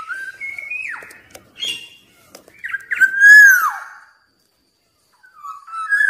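Black-naped oriole singing: fluid whistled phrases that slide up and down in pitch, with short pauses between them. The loudest is a long slurred whistle about three seconds in that drops away at its end.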